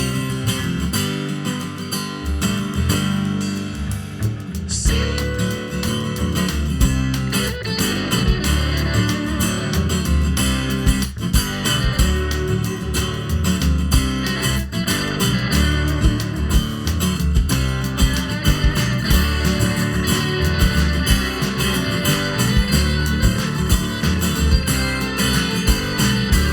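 A live band plays an instrumental passage on guitar, bass guitar and drums. The full band comes in harder about five seconds in, with steady drum and cymbal hits under the guitar.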